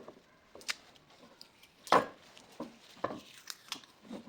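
Scattered light clicks and taps of a bicycle fork and a roll of masking tape being handled while parts of the fork are masked off, with one sharper tap about two seconds in.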